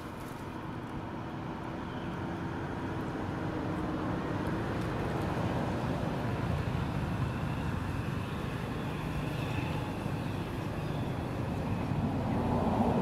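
Low rumble of a distant engine, growing gradually louder.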